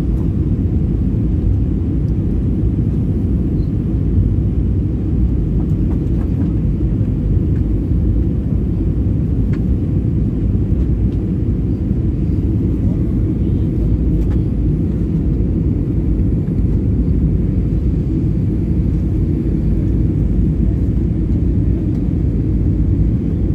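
Steady low rumble of airliner cabin noise heard from a window seat during the descent to land: engine and airflow noise, unbroken throughout.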